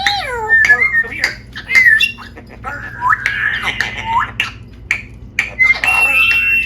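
Pet parrot squawking and chattering: a fast run of short calls that swoop up and down in pitch, mixed with sharp clicks, ending in a held, steady whistle near the end.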